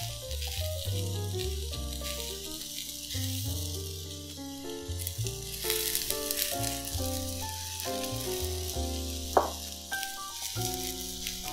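Baby bok choy, cucumber and kohlrabi slices sizzling on a hot ridged grill pan with a steady hiss, under soft melodic background music. A single sharp click comes about nine seconds in.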